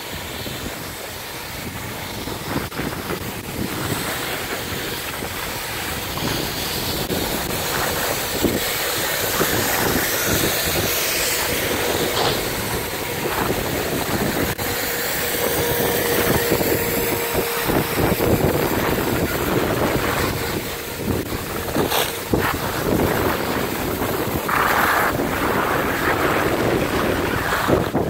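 Wind rushing over the microphone of a camera carried by a skier moving downhill, mixed with the scrape and hiss of skis on packed snow.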